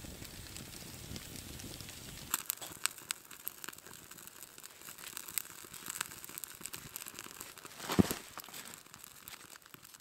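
Wood campfire crackling with scattered sharp pops, starting about two seconds in after a soft steady hiss, with one louder thump near the end.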